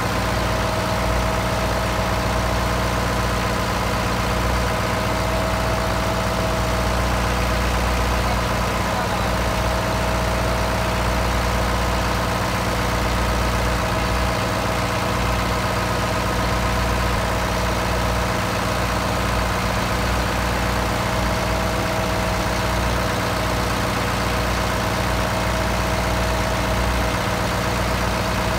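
Steady drone of the fishing boat's diesel engine running at constant speed, heard inside the engine room, with a steady whine over the low rumble.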